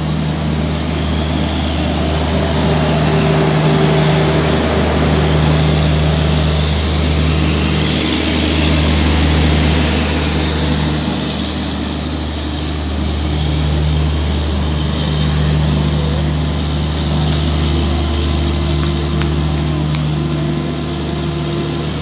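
Electric-hauled LHB train rolling slowly past a platform: a WAP-4 electric locomotive, then the LHB generator car with its diesel generator sets and cooling fans running, making a loud steady hum. A hiss swells about ten to eleven seconds in, as the generator car goes by.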